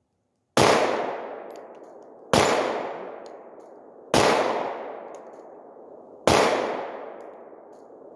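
Four single pistol shots fired at a slow, even pace, about two seconds apart. Each shot trails off over about a second and a half.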